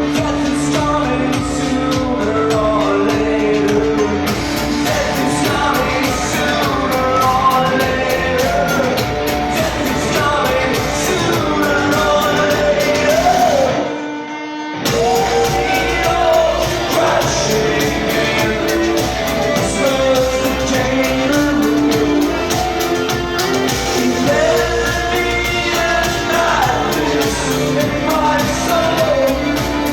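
Live band performance of a song with a sung lead vocal over a steady beat. About halfway through, the bass and beat drop out for about a second, then the full band comes back in.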